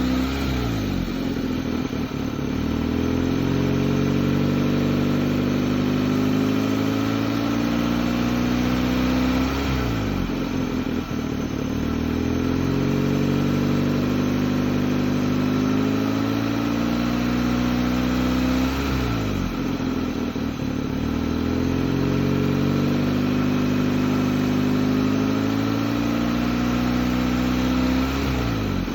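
2004 Hyundai Elantra's four-cylinder engine running with an unsteady, surging idle. Its speed dips sharply about every nine seconds and then climbs slowly back up, over and over. This is the strange revving of an engine restarted after sitting two years, with its check-engine light on.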